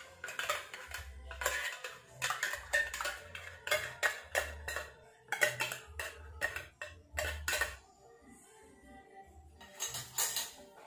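Quick, irregular clinks and taps of a small jar being shaken and knocked against a plastic mixing bowl to empty bait powder into it, pausing about eight seconds in and clinking a few more times near the end. Background music with a low beat runs underneath.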